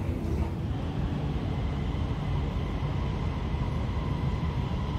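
Hyundai Rotem driverless metro train moving through an underground station, heard as a steady low rumble. A faint steady whine joins it about two seconds in.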